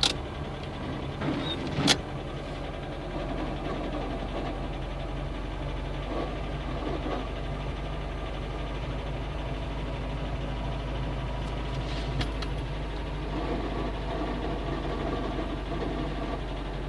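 VAZ-2109 carburettor four-cylinder engine idling steadily, with a noise from the cylinder head near the distributor that the owner cannot yet place; the oil pressure light is off. A sharp click comes about two seconds in.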